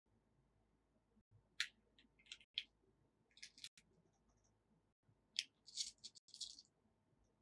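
Light clicking and rattling of small plastic alphabet beads as they are picked out of a plastic compartment bead box and threaded onto elastic cord: a few scattered clicks, then a longer run of rattling near the end.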